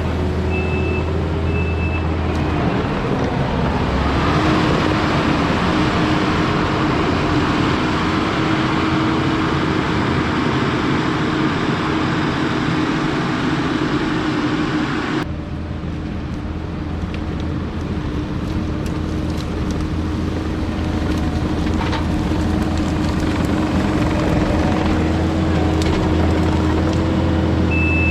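Diesel heavy equipment running steadily, with three short backup-alarm beeps in the first two seconds. The sound changes abruptly about halfway through.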